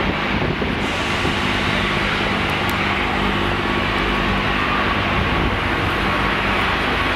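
Steam locomotive 70000 Britannia working a train slowly, with a steady loud hiss of steam from its open cylinder drain cocks over a low, even rumble.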